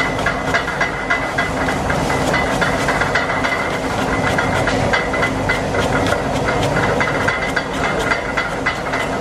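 Cleaver slicing lemongrass into thin rings on a thick wooden chopping block: quick repeated knocks, several a second, over a steady loud hiss and hum.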